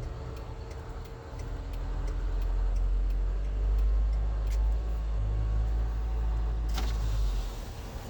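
Car road noise heard from inside a moving car: a low rumble that swells about a second in and eases off near the end, with a sharp click shortly before it fades.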